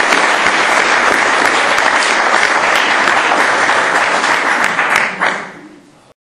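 Audience applauding with dense clapping, which dies away about five seconds in and then cuts off abruptly.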